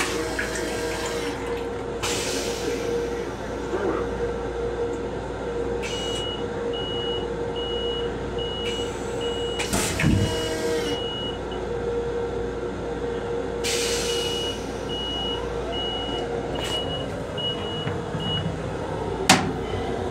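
M7 railcar toilet flushing: water rinsing down the stainless-steel bowl, with a thump about halfway through, over a steady hum from the train. A high beep repeats about twice a second in two runs of several seconds, and a sharp knock comes near the end.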